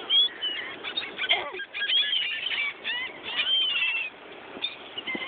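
A flock of seagulls calling: many short, overlapping squawks and cries from several birds at once.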